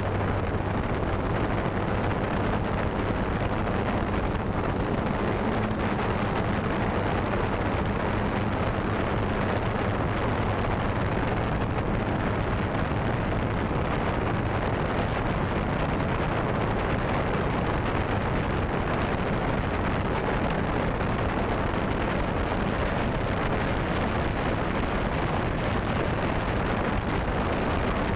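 Steady rush of wind and propeller noise from a flying drone carrying the camera, with a low hum that fades about ten seconds in.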